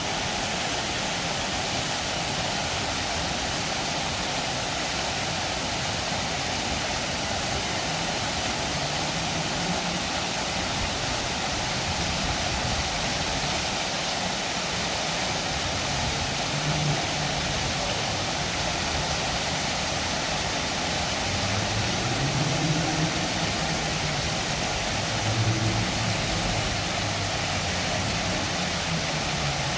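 Water fountain running, its jets splashing steadily into the basin. Faint low pitched sounds come and go in the background, most around twenty-two to twenty-six seconds in.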